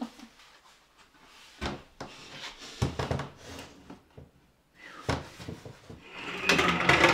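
A painted mirror frame knocking and scraping against a board-panelled wooden wall as it is lifted and fitted onto its hanger: a few separate thumps, then a longer, louder scraping rustle near the end.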